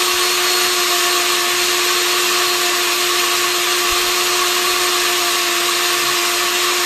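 LEJIEYIN electric high-speed grain grinder running at full speed, its blades milling whole oats into fine oat flour. It makes a loud, steady motor whine over an even rushing noise.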